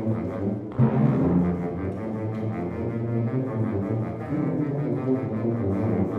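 Concert wind band playing, with brass prominent in sustained low chords and a sudden loud accented entry just under a second in.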